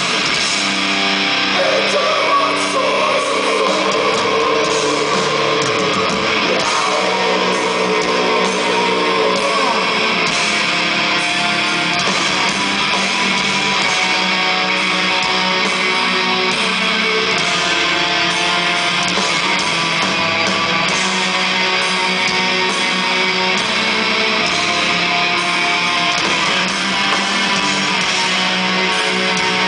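Death metal band playing live through a festival PA: loud, dense distorted electric guitars over bass and drums, heard from within the crowd.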